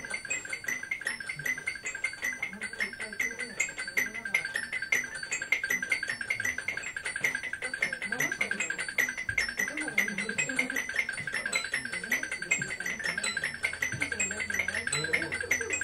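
Live experimental noise music: a dense, rapid stream of clicks over a steady high band of tone, with short high bleeps flickering above and wavering lower tones beneath. A low steady hum comes in about thirteen seconds in.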